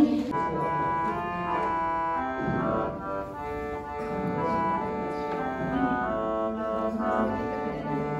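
Small portable electronic keyboard playing a melody of held notes, one after another, in an organ-like voice.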